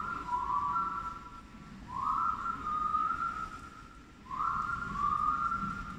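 A whistled melody repeating a short phrase that slides up and then holds two notes, about every two and a half seconds, over a low murmur of arena noise.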